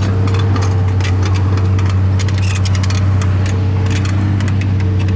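Miniature bulldozer running with a steady low hum, overlaid by a quick run of clicks and rattles from the machine as it works.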